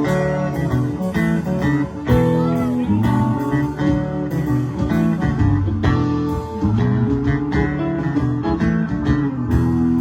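A live band playing: guitar lines over bass and drums.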